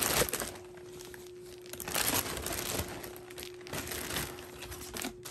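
Clear plastic packaging bag crinkling in a few bursts as vinyl doll kit parts are handled in a cardboard box, with a faint steady hum underneath.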